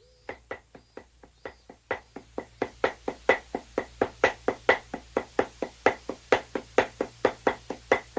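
Dadeumi (traditional Korean laundry beating): wooden bats striking cloth on a smoothing stone in a fast, even rhythm of about five knocks a second, stronger and weaker strokes alternating. The knocks grow louder over the first two seconds.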